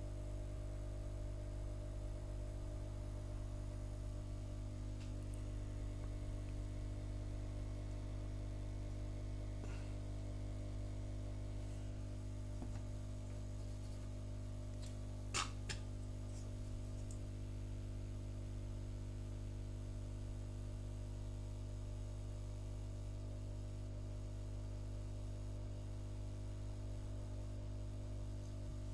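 Steady electrical mains hum, with one sharp click about halfway through.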